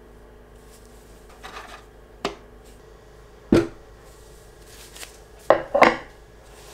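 Small hard plastic parts being handled: a few sharp clicks and taps, a heavier knock about three and a half seconds in, and two quick clicks close together near the end.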